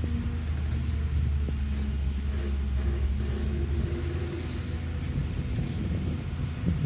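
Caterpillar excavator's diesel engine running steadily with a deep rumble, and a faint higher tone from about two to four seconds in.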